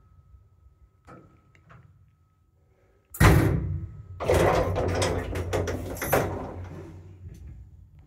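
Passenger lift doors: a faint steady tone and a couple of small clicks, then a sudden loud bang about three seconds in, followed by about two seconds of rumbling and rattling clicks.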